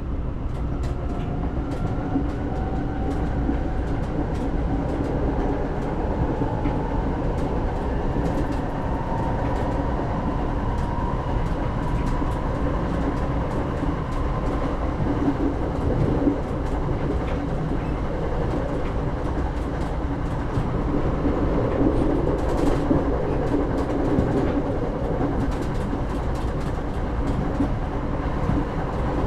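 Inside a local train carriage running slowly: a steady rumble of the car with faint wheel clicks over the rails and a few quiet steady tones.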